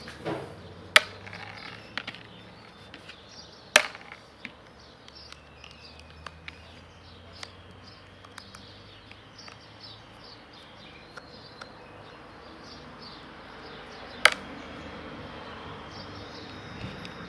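Small metallic clicks and ticks of a screwdriver and screws being handled against a Stihl 028 chainsaw carburetor, with three sharper clicks about one, four and fourteen seconds in.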